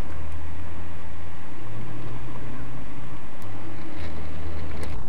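Car engine and road noise droning inside the cabin as picked up by a dashcam, the low hum shifting pitch a few times, with a couple of sharp clicks near the end.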